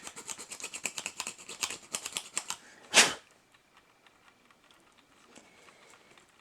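Small hand tool working a diecast model part in rapid short scraping and clicking strokes as slots are cut out for a rear wing. A single short, loud burst of noise comes about three seconds in, after which the strokes stop.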